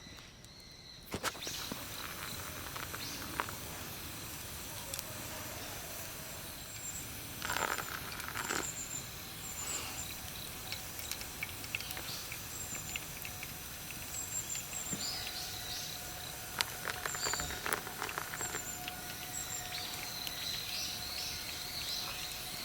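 Outdoor ambience: a steady hiss with scattered clicks and brief rustling swishes, and short high chirps from time to time.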